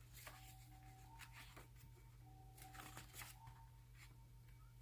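Near silence: room tone with a steady low hum and a few faint rustles and clicks.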